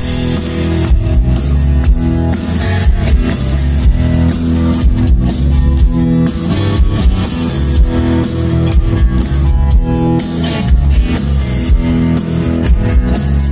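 Live rock band playing without vocals: electric guitar over bass guitar and a drum kit, with regular drum hits, amplified through large stage speakers.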